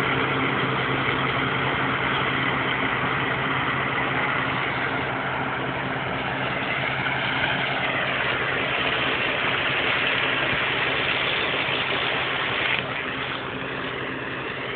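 Engine-driven wheat-threshing machinery running steadily, an engine's hum under the noise of the threshing works. It turns a little quieter about thirteen seconds in.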